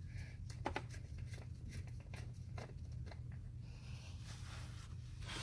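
Faint scattered clicks and light scrapes of hand work taking the cover off a motorcycle's rear brake fluid reservoir, over a steady low hum.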